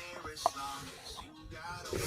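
Background music with a pitched melody.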